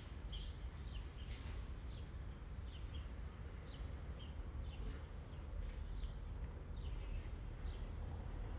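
Small birds chirping repeatedly, short high notes that drop in pitch, two or three a second, over a steady low background rumble.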